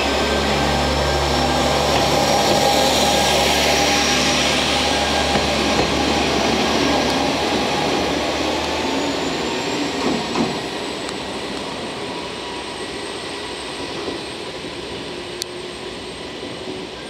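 JNR KiHa 47 diesel railcar pulling away under power, its diesel engine running loud at first and fading steadily as it draws away. A thin high whine runs over it, and there is a short knock about ten seconds in.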